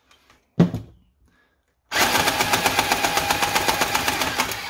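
A click as a spade connector is pushed onto the drill battery, then about two seconds in the Nerf Vulcan EBF-25's electric drive starts and runs, powered by a 20-volt drill battery, with a loud, fast, even rattle as the firing mechanism cycles.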